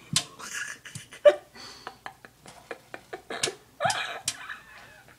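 A cat pawing at a thin trickle of water from a kitchen faucet: irregular sharp taps, clicks and small splashes in the sink, with two short pitched sounds about a second in and near four seconds in.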